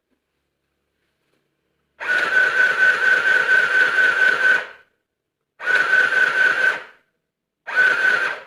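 Mini electric sewing machine stitching in three runs: its small motor starts and stops with a steady high whine over the clatter of the needle, a long run of almost three seconds followed by two short ones.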